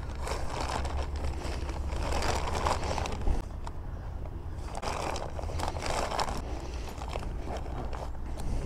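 Thin plastic grocery bag rustling and crinkling as it is pushed into a fabric motorcycle tail bag, then the bag's zipper being pulled near the end, over a steady low rumble.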